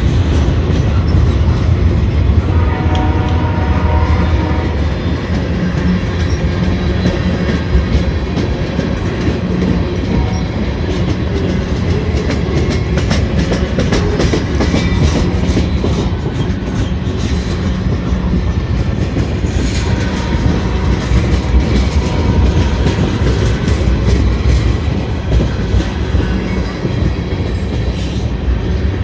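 CSX freight train rolling slowly past, railcar wheels clacking over the rail joints over a continuous heavy low rumble.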